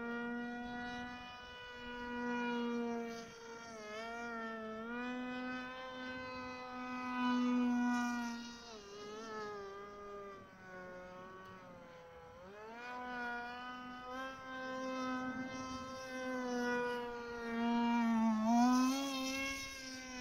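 Electric motor of a small radio-controlled F-22 model plane in flight, giving a steady buzzing whine. Its pitch sags and climbs again several times as the plane circles and the throttle changes.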